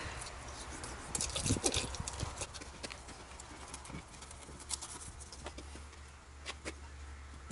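A knife scraping and tapping on a fish lying on a wooden board as it is cleaned: irregular sharp clicks and scrapes, a few louder than the rest, over a low steady rumble.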